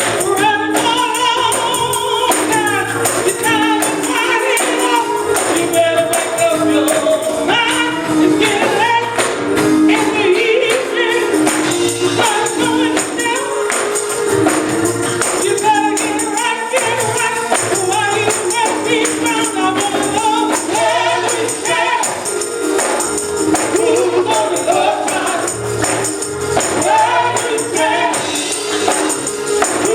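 A group of voices singing a gospel song, with a tambourine shaken along in a steady beat.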